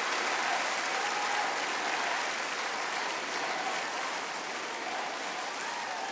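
Live concert audience applauding and cheering: a steady, dense wash of clapping with faint voices calling out in it.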